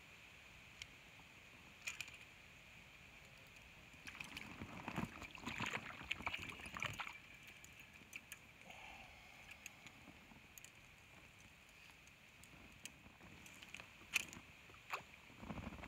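A small fish hooked on a float rod splashing at the surface as it is played and swung out of the water, for a few seconds a little before the middle. A few sharp clicks follow, and a soft knock near the end.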